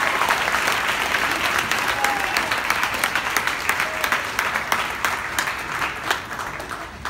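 Audience applauding after a tenor saxophone performance ends, the clapping slowly thinning and dying away near the end.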